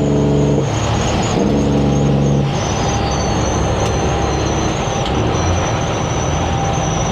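Semi truck's diesel engine droning under load, breaking off briefly, coming back, then dropping away about two and a half seconds in, leaving steady road and wind noise. A high turbo whistle sounds throughout, and a fainter whine falls slowly in pitch after the engine lets off.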